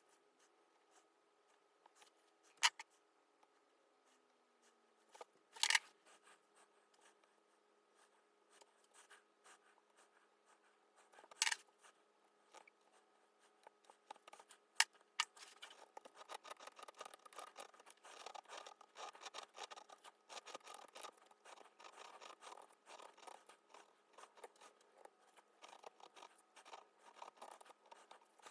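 Hand carving tools cutting into wood: four sharp clicks in the first half, then a steady run of small quick cutting and scraping strokes.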